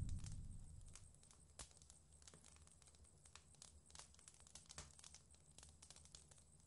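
Near silence: a faint low hum with scattered soft clicks and crackles, after the preceding sound dies away in the first second.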